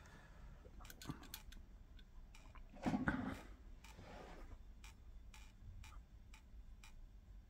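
Faint scattered light clicks and taps of tweezers and small parts being handled at a workbench, with one short, louder shuffling sound about three seconds in.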